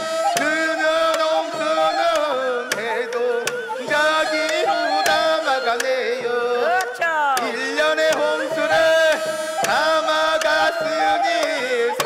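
Korean shamanic ritual music accompanying a shaman's dance: a held, wavering melody line with swooping pitch bends about seven seconds in, over repeated drum and cymbal strokes.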